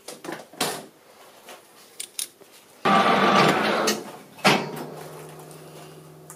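A foam block being pulled off a freshly cut threaded steel spindle: a few light clicks, then a loud scraping rustle lasting about a second and a half, followed by a sharp knock. A faint steady hum remains after.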